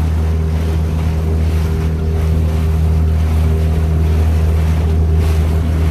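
Small hire motorboat's engine running at a steady speed, a loud even hum, with wind buffeting the microphone and water rushing past the hull.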